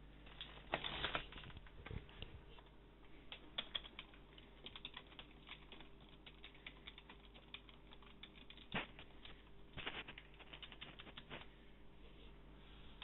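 Computer keyboard typing: faint key clicks in uneven quick runs, with a few louder clusters, over a faint steady hum.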